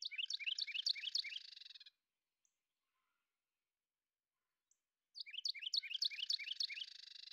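An animal's rapid chirping call, a quick run of short high notes lasting about two seconds, heard twice: it ends about two seconds in and starts again about five seconds in.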